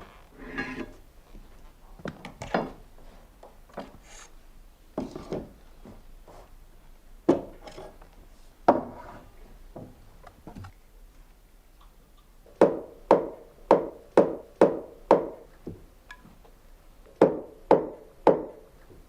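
Knocking on wood: scattered single knocks, then a run of six quick, even blows about two a second, and three more near the end.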